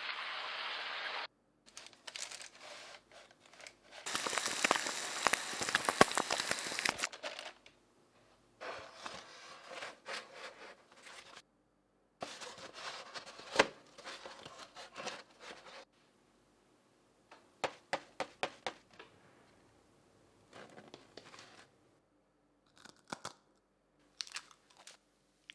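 Deep-fat frying sizzle for about the first second, cut off abruptly; then a series of crisp crackling, tearing and crinkling bursts as giant deep-fried fries are handled and pushed into a cardboard fry carton.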